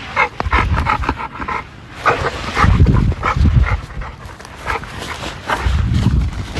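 A dog panting hard in quick, repeated breaths.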